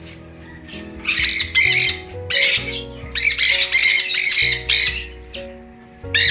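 Sun conures screeching: loud, shrill calls in several bursts, the longest run of calls from about three to four and a half seconds in, with one more burst at the very end. Background music plays underneath.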